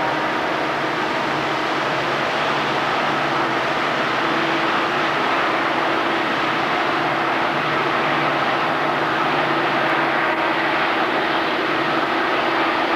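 Several diesel freight locomotives working hard upgrade under heavy load: a loud, steady engine drone with a whine on top, growing slightly louder as the units approach.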